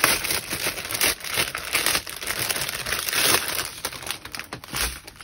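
Clear plastic wrap around a bundle of diamond painting drill bags crinkling as the bundle is handled and turned, stopping near the end.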